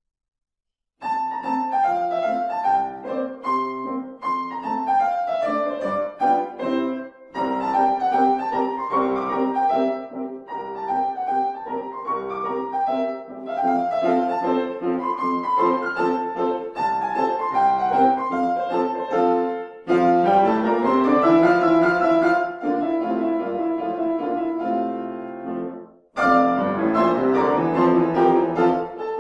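Piano four hands on a grand piano: two players in a lively classical duet, starting about a second in. A fast rising run comes about two-thirds of the way through, and there is a short break near the end before the playing resumes.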